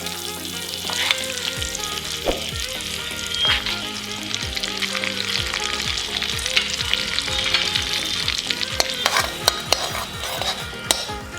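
Butter melting and sizzling in hot oil in a pan, with a spoon stirring and now and then clicking and scraping against the pan.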